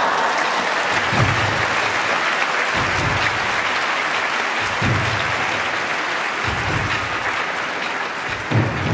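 Sumo arena crowd applauding steadily, over the slow low drum beat of background music.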